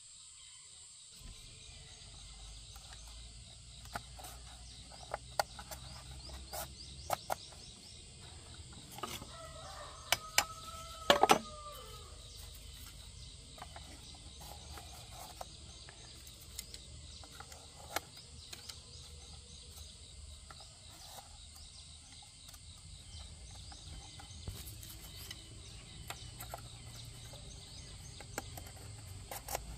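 A knife splitting thin bamboo strips gives a scatter of sharp cracks and taps, loudest about ten to eleven seconds in. A chicken gives one drawn-out call of about two seconds around nine seconds in, over a steady chirring of insects.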